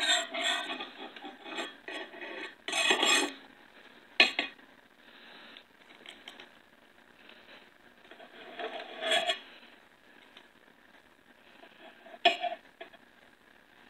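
Table knife scraping on a ceramic plate while cutting apart a cooked fish, in several short bursts of scraping with a couple of sharp clinks against the plate, one about four seconds in and one near the end.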